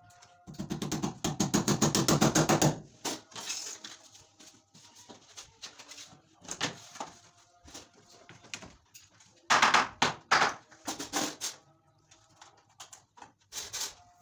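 Hammer tapping on PVC wall panels: a fast run of light taps about half a second in, then scattered knocks with a louder cluster later on.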